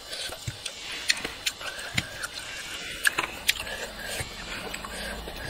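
Close-up eating sounds of chewing chicken heads and rice: irregular sharp clicks and smacks, several a second.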